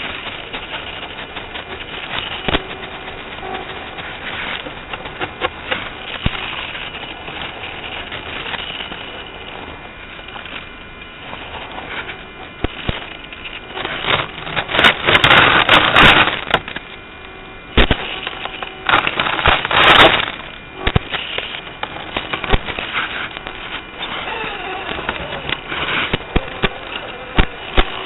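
Scale RC crawler truck driving over ice, heard through its onboard microphone: a steady whine from the motor and gears under dense crackling and clicking from the tyres on the ice. Twice, a little past the middle, the crackling swells into a louder rush of noise for a second or two.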